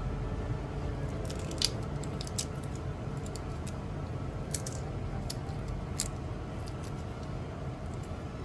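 Boiled shrimp being peeled by hand: small, scattered cracks and wet squishes as the shells split and pull away from the flesh, over a steady low hum.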